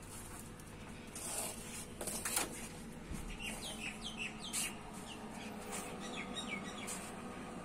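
A small bird chirping a quick run of short, falling chirps from about three seconds in, over a steady low hum. A few handling clicks and rustles come before the chirps.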